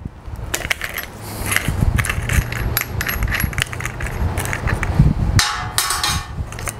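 Clicking and light metallic rattling from a Harbor Freight 4.5-inch angle grinder, switched off, as its spindle and gears are turned and worked by hand. It is being checked for a fault because it runs awfully loud. A brief scraping rasp comes near the end.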